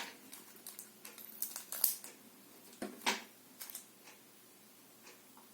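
Scissors snipping open a packet of slime powder: a few short, sharp snips and rustles of packaging in the first four seconds, then quiet handling.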